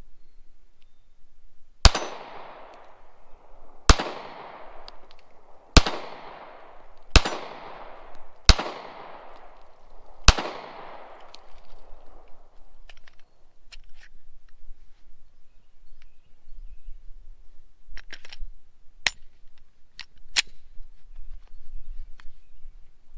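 Six shots from a Glock 43 9mm subcompact pistol, fired one to two seconds apart, each followed by a long echo; the sixth shot empties the magazine and the slide locks back. A few sharp, fainter clicks follow near the end as the pistol is handled.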